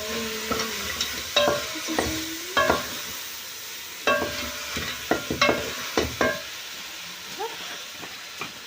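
Chicken sizzling as it fries in a pot while a spoon stirs it, knocking and scraping against the pot with short ringing clinks every second or so.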